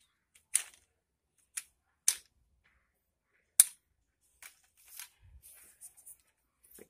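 Lightweight aluminium tripod being handled: its plastic leg clamps and fittings give four sharp clicks, the loudest about three and a half seconds in, then softer knocks and rattles as the legs are worked and tightened.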